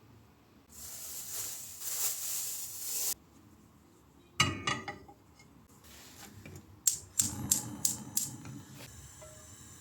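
Close-up handling noises: about two seconds of rustling, then a sharp click, then a quick run of clicks and taps.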